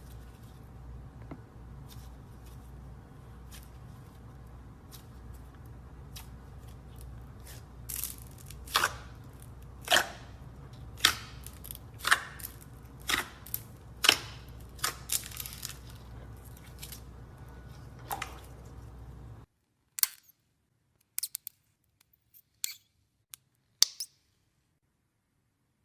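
Slime being handled, making sharp clicking pops about once a second over a low steady hum. The hum stops abruptly about three-quarters of the way through, and a few more clicks follow on a near-silent background.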